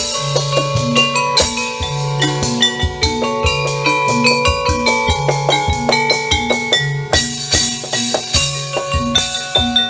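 Background music with a steady drum beat, a repeating bass line and a melody of short, bright notes.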